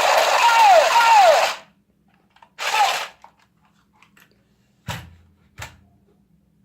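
Electronic gunfire sound effect from a toy SCAR assault rifle's speaker: a rattling burst with two falling electronic tones that cuts off about a second and a half in, then a short second burst with another falling tone. Two sharp clicks follow near the end.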